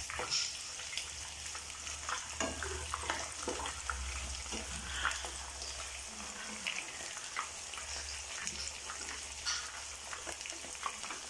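Marinated, cornflour-coated chicken pieces frying in hot oil in a nonstick pan: a steady sizzle with scattered pops. A slotted metal spatula turns the pieces, adding occasional taps and scrapes against the pan.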